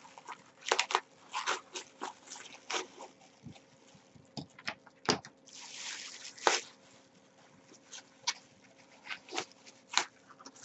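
Clear plastic bag crinkling and rustling as it is snipped open with scissors and pulled apart by hand: a string of short, irregular crackles, busiest about six seconds in.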